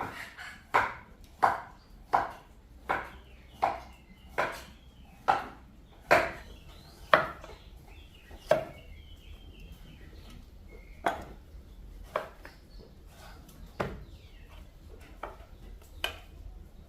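Chopping: a blade striking down onto wood in a steady run of about one stroke every 0.7 seconds, thinning to occasional strokes after about eight seconds.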